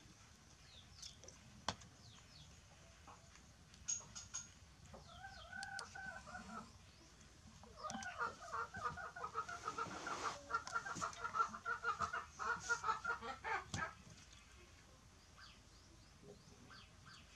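Chicken clucking in rapid runs of short calls: a brief run about five seconds in, then a longer, louder run lasting about six seconds. Faint high bird chirps sound earlier on.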